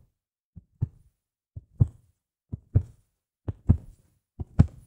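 A piece of clothing held by its sides and snapped taut again and again, each pull giving a double thump, about once a second, as a foley heartbeat. The thumps grow louder as it goes on.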